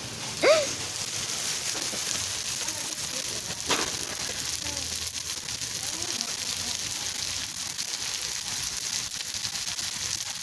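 Pad thai noodles sizzling steadily in a hot steel wok over a gas burner, with a single short knock about four seconds in.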